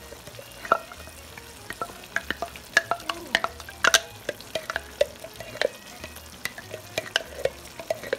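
Wooden spoon scraping and knocking thick queso out of a jar into a skillet of browned ground beef, with irregular clicks and taps, over a light sizzle from the pan.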